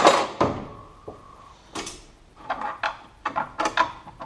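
Metal suspension parts being handled and fitted. One loud knock comes right at the start, and a run of quick clinks and taps follows in the second half.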